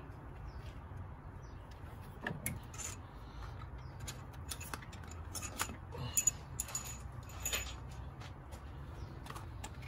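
Scattered small clicks and rattles of hands working on an automotive AC compressor, unplugging its clutch electrical connector, over a low steady hum.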